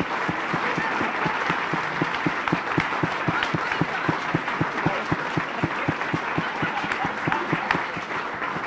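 Audience applauding, with an even beat of short low knocks at about four a second running through the clapping.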